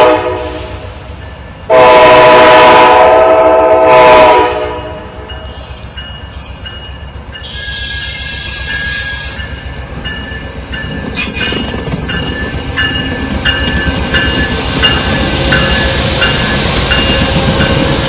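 Amtrak Northeast Regional train's locomotive horn: the tail of one blast, then a long blast of about two and a half seconds. The train then rolls slowly into the station, wheels squealing and clicking over the rails as the rumble builds.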